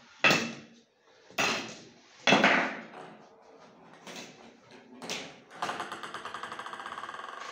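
Plastic balls and parts of a LEGO Mindstorms chain-reaction machine knocking: three loud knocks in the first two and a half seconds, a couple of softer ones, then a fast, even rattle from about five and a half seconds in.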